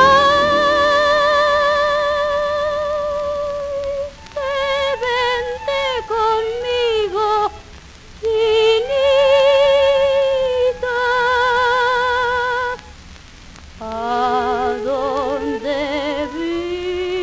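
1931 78 rpm record of a song with orchestral accompaniment, in a wordless passage: a single melody line with wide vibrato carries long held notes, broken by three short pauses. The accompaniment is faint beneath it.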